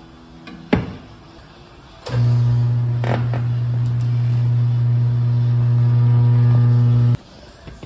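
Tyre-changer machine's electric turntable motor running with a steady low hum for about five seconds, starting about two seconds in and stopping abruptly, as it turns the wheel to work the motorcycle tyre's bead onto the spoked rim. A sharp click under a second in.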